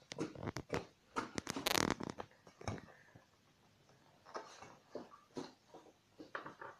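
Small corked glass glitter vials being handled and glitter tapped out over a glass mug: a string of sharp clicks and taps, with a brief, louder rustle near two seconds in, then scattered softer clicks.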